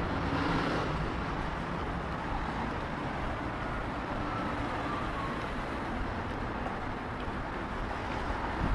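Steady street traffic noise: the even rumble of cars moving along city streets, with no single event standing out.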